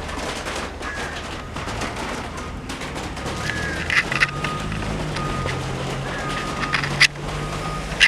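Short, high, falling bird chirps repeating every second or so over a steady low engine hum. A few sharp clicks stand out, the loudest near the end.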